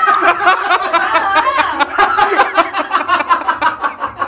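People laughing hard: loud, continuous, rapid bursts of laughter.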